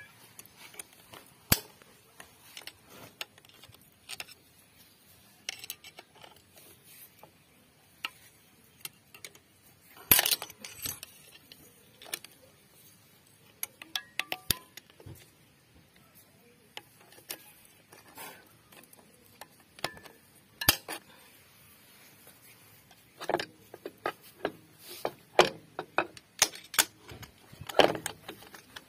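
Irregular metallic clicks and clinks of a screwdriver and pliers on the coil return springs and steel pressure plate of a tractor's brake assembly as the springs are hooked into place, coming thicker near the end.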